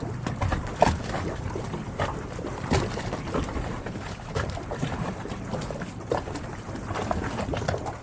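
Harbour water lapping and slapping against the hulls of moored yachts, with irregular small splashes and knocks.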